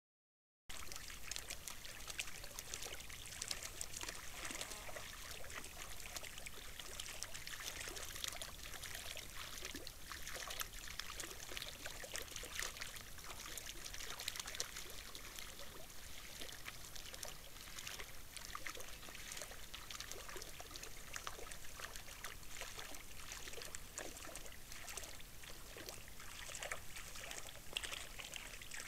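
Shallow water splashing and trickling, stirred up by black storks wading and chasing fish, a steady dense patter of small splashes.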